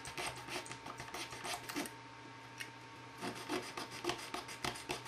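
Coarse side of a mini razor saw cutting through the casting plug of a resin ejector seat: short back-and-forth rasping strokes, about four a second. The strokes pause for about a second near the middle, then start again.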